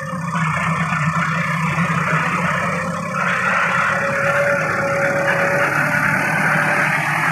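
Diesel tractor engine running steadily under load while its front-end loader carries and raises a bucket of wheat straw. A thin, steady whine joins for about two seconds in the middle.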